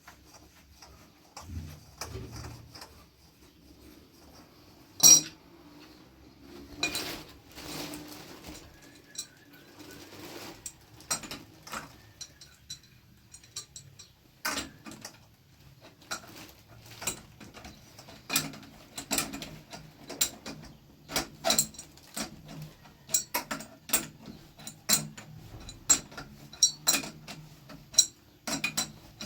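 Hand tools clinking and tapping on metal: irregular sharp clicks and knocks, one loud knock about five seconds in, coming more often, about one or two a second, in the second half.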